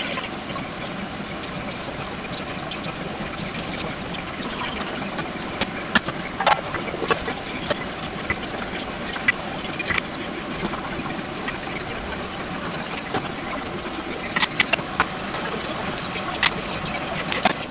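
Metal utensils clicking and scraping against a stainless stockpot and frying pan as fried onions are moved into the broth and stirred, with a string of sharp clicks from about six seconds in. A steady rushing hiss runs underneath.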